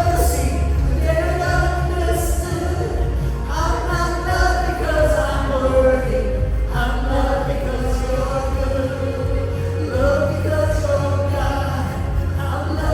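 Church worship band playing, with voices singing a melody over a steady bass.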